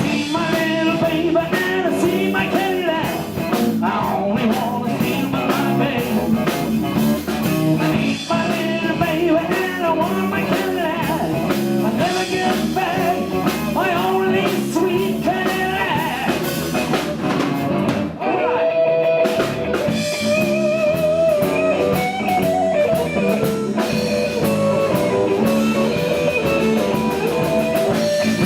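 Live blues-rock band playing: electric guitar lines over a drum kit.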